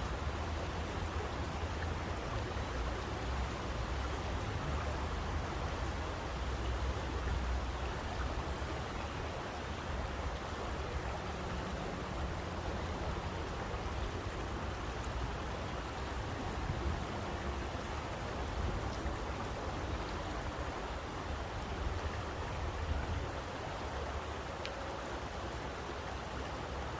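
Flowing water rushing steadily, with a low rumble underneath and a few faint ticks.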